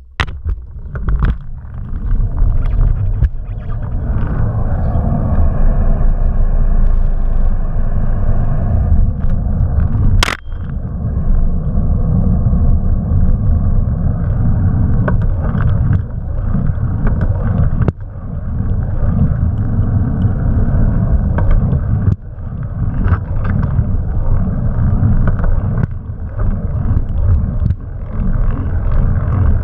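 Riding noise picked up by an action camera mounted low on a bicycle by the pedal crank: heavy wind buffeting on the microphone and tyre rumble on asphalt, with scattered clicks and knocks from the bike and mount, the sharpest about ten seconds in.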